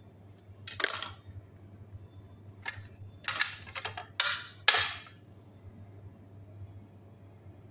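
Kitchen handling noises as a baked potato is stuffed: about six short, sharp scraping and rustling sounds from the potato, knife, spoon and plate, the loudest two a little past the middle.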